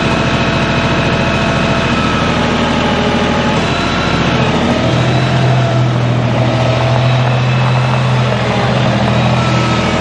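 A heavy engine running steadily. About halfway through its note changes and a strong low hum comes in.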